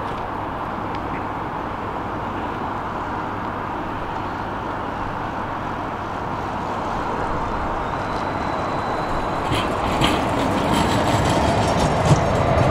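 Light-rail tram approaching and pulling in alongside the platform: a steady background rumble grows louder over the second half, with wheel clicks on the rails and a faint high squeal near the end.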